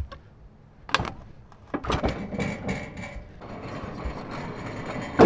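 Metal clanking and rattling from the steel fittings of a Wood-Mizer LT10 portable bandsaw mill as the log is set: one sharp knock about a second in, then a run of irregular clanks and rattles.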